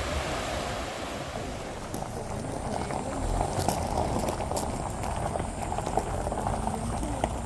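Rushing water of a waterfall, a steady hiss of falling and splashing water; from about two seconds in, scattered clicks and taps sound over it.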